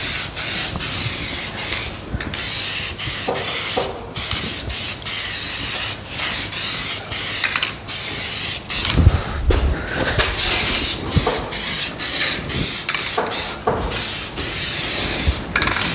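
Masking tape being peeled off freshly painted car bodywork: a rasping, crackling rip in many short pulls with brief pauses between them.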